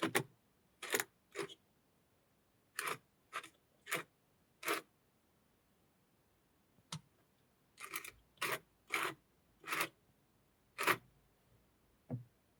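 About a dozen short, sharp scraping strokes at irregular intervals, with a pause of about two seconds in the middle.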